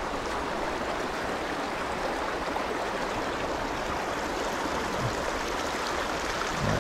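Steady rushing of a small river's flowing water.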